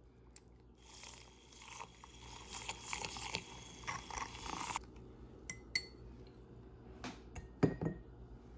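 Handheld battery milk frother whirring in a glass for about four seconds as it whisks powdered creamer into liquid, then stopping. A few clinks of glass and utensils follow, the sharpest near the end.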